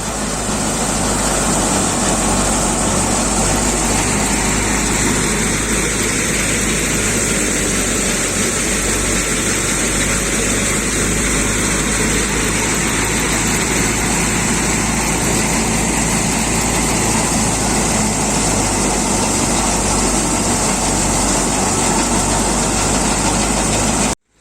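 Tractor-driven wheat thresher running steadily, with a regular low pulse from the engine under a constant high hiss. It cuts off suddenly near the end.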